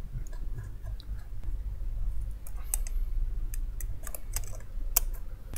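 Light, irregular clicks and taps of a thin steel reballing stencil and a CPU chip being set and lined up in a magnetic reballing holder, with one sharper click about five seconds in. A steady low hum runs underneath.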